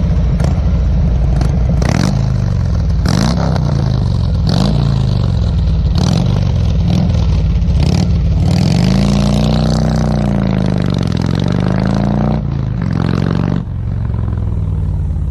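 A vehicle engine running loudly and revving, its pitch dipping and climbing again several times, with sharp clattering knocks scattered through it.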